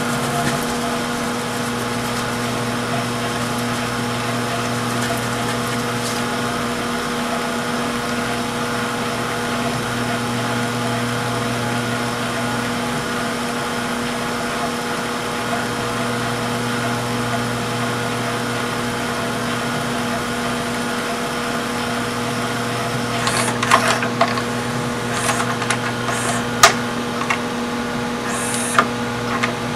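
VHS transport of an LG V194H DVD/VCR combo spooling a T-120 cassette at high speed, a steady motor hum with a few level tones. About three-quarters through, a series of sharp clicks and clunks starts as the mechanism shifts.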